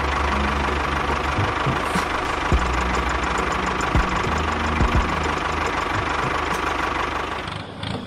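A tractor-style engine running steadily, with a few low thumps, as the miniature tractor pulls its loaded trailer. It cuts off near the end.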